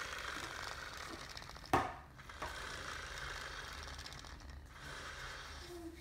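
Pull-string mechanism inside a plush Edward toy engine whirring steadily as its cord winds back in, with one sharp knock a little under two seconds in.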